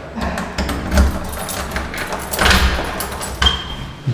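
Keys jangling and a door lock clicking as a flat's front door is unlocked and opened, with a few dull thumps.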